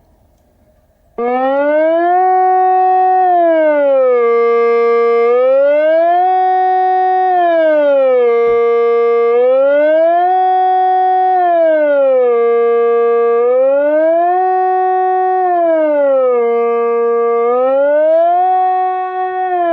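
Kockumation TK-150 electronic siren cutting in abruptly about a second in and sounding a loud, regular rising and falling wail. Each cycle climbs, holds the high note for about a second, drops and holds the low note, roughly every three and a half seconds.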